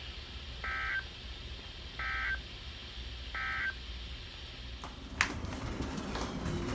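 Emergency Alert System end-of-message signal from a NOAA Weather Radio broadcast: three short bursts of warbling digital data tones, evenly spaced, marking the end of the alert message. Sharp clicking noises begin about five seconds in.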